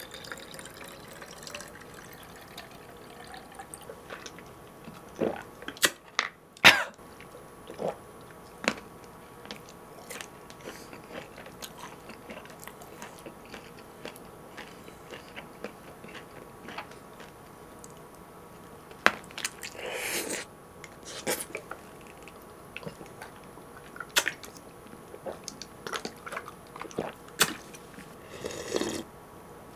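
Close-miked eating sounds: biting and chewing sausage, with scattered short clicks of a fork and dishes on the table.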